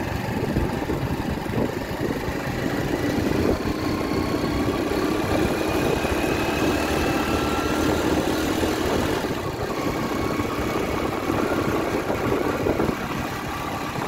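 Motorcycle engine running steadily while riding along, with wind rumble on the microphone; the engine note rises gently a few seconds in.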